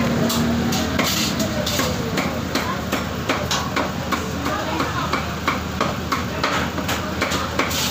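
A cleaver chopping sisig on a round, metal-rimmed chopping block: a quick, uneven run of sharp blows, about two to three a second. Voices run underneath.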